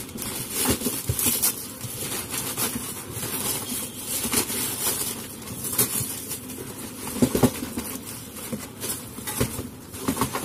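Plastic wrapping rustling and crinkling as it is handled and pulled open by hand, with cardboard packing scraping and being pulled out; irregular crackles throughout.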